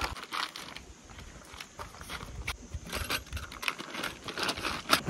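A nylon stake pouch rustling and the metal tent stakes inside it clinking as it is rolled up and set down on gravel, heard as a string of short, irregular rustles and clicks.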